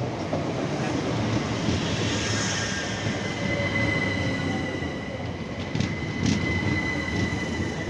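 Train running on the rails with a steady rumble; a high, steady wheel squeal sets in about three seconds in and holds, with a couple of brief clicks near the end.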